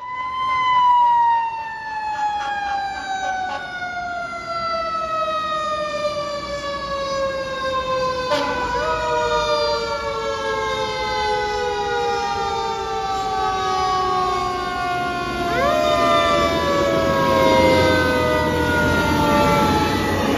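Fire engine siren winding slowly down in pitch, jerked quickly back up twice, about a third and three quarters of the way through, then winding down again each time. The fire engine's own engine rumble grows louder near the end as it passes close by.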